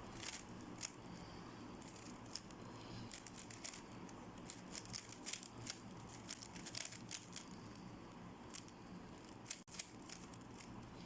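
Plastic 3x3 speedcube being turned fast during a solve: rapid, irregular clicking and clacking of the layers.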